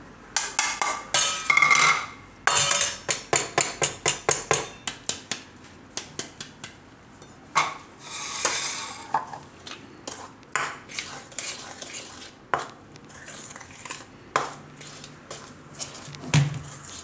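Steel flour sieve shaken and tapped over a steel bowl, rattling and clinking rapidly for the first few seconds. After that, a steel spoon clinks and scrapes against the steel bowl as wheat flour is mixed into mashed banana and sugar.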